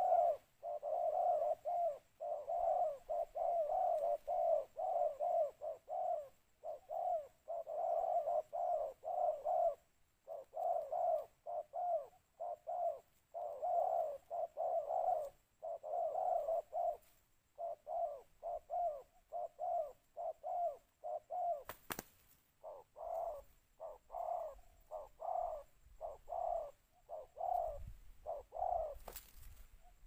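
Spotted dove cooing over and over, phrase after phrase with short gaps, a decoy-style calling song. Two sharp clicks cut through, about two-thirds of the way in and again near the end.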